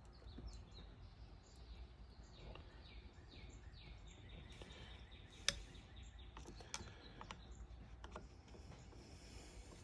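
Faint bird chirps, a run of short falling notes, over quiet background noise. A few sharp clicks are mixed in, the loudest about five and a half seconds in.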